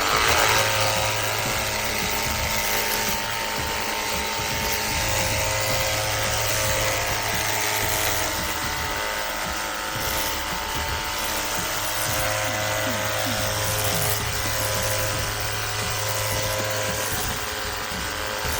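Cordless pressure washer running: a steady motor whine with a low hum under the hiss of the water jet, starting abruptly.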